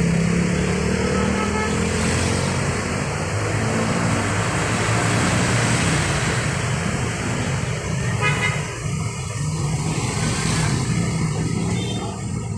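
Road traffic: vehicle engines running steadily, with a brief horn toot about eight seconds in.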